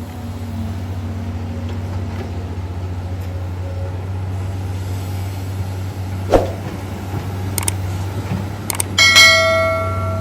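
Komatsu PC200-8 excavator's diesel engine running steadily, with a sharp knock about six seconds in. Near the end comes a loud metallic clang that rings on and fades.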